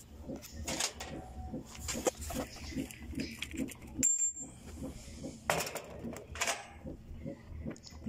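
Metal tools and parts being handled: clinks, rattles and rustling, with one short high metallic ping about four seconds in. Under it runs a soft low pulsing, about three times a second.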